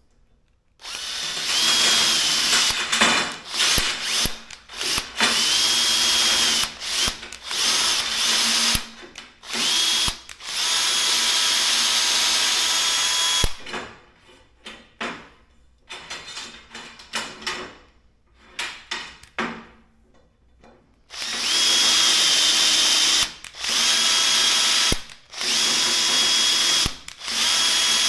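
Cordless drill-driver running in repeated stop-start bursts, driving a screw into the end of an aluminium extrusion profile. Each run opens with a whine that climbs in pitch, and a stretch of short jabs comes in the middle.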